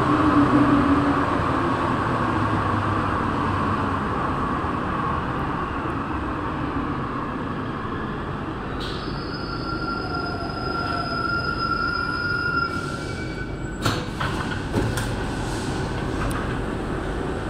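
Santiago Metro NS16 train's running noise heard from inside the driver's cab as it slows into a station, slowly getting quieter. A steady whine is held for a few seconds in the middle, and a few sharp clicks come near the end as the train stops.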